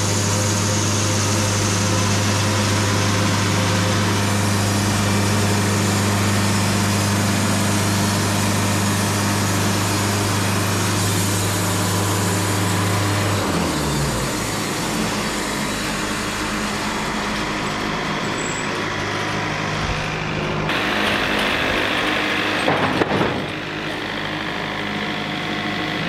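Wood-Mizer LT70 band sawmill running steadily while its blade cuts through a log; about halfway through, its hum drops in pitch and changes as the cut ends. Near the end comes a louder rushing noise with a few sharp knocks as the cant is handled on the deck.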